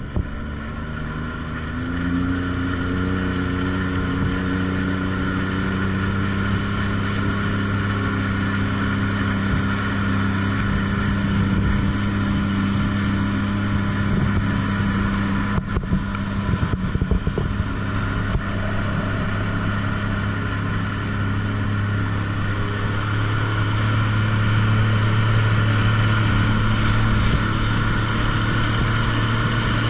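Jet ski engine running steadily at speed, picking up about two seconds in and getting a little louder later on, over the rush of wind and water from the wake.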